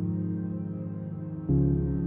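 Soft ambient background music of sustained held notes, with a new, louder chord coming in about one and a half seconds in.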